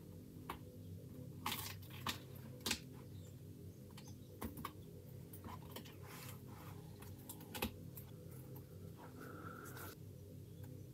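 Faint small clicks and scratches of metal tweezers working on a plastic scale model as masking tape is picked up and peeled off, with a few short rustles of the tape. A low steady hum underneath.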